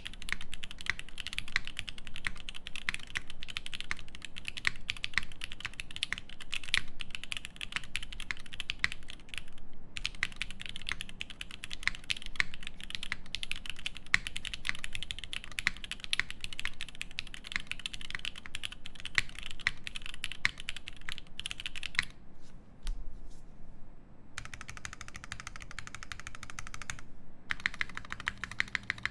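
Fast typing on a Keycult No.1 TKL mechanical keyboard with lubed Alpaca linear switches in an aluminium plate and GMK keycaps: a dense, continuous stream of key clacks, with a brief pause about three quarters of the way through.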